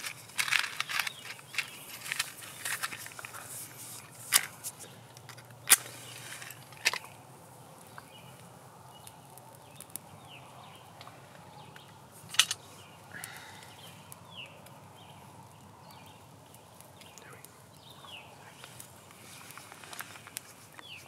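A bundle of small dry twigs handled close by, giving many sharp clicks and snaps, with a match struck and lit about six seconds in to light the tinder. Later there are only occasional single snaps.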